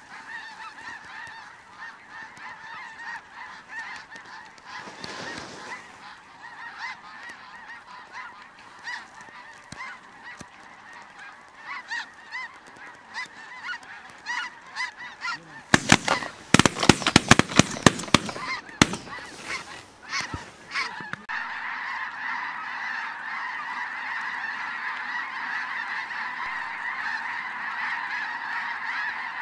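Flock of snow geese calling overhead, a constant chorus of high honks that grows fuller and louder in the last third as a huge flock passes. Just past halfway, a rapid volley of a dozen or so loud shotgun blasts comes over about three seconds.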